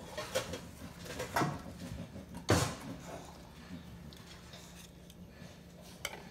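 Knife and carving fork scraping and clicking against the cooking pot while a roast chicken is carved, with a few sharp clinks, the loudest about two and a half seconds in.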